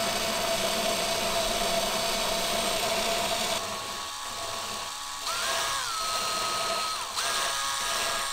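Cordless drill spinning a valve against its seat in a Yanmar 2GM diesel cylinder head to lap it with grinding compound. The motor whine is steady, and its pitch shifts in steps a few times from about halfway through.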